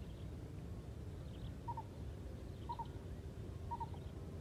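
An animal calling a short two-part note, repeated regularly about once a second, over a steady low rumble.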